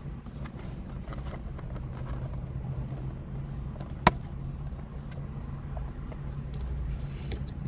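Steady low hum of a car engine idling, heard from inside the car, with a single sharp click about four seconds in.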